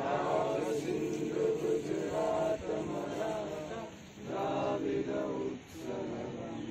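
A group of people singing together in unison, in held phrases a second or two long with short breaks between them.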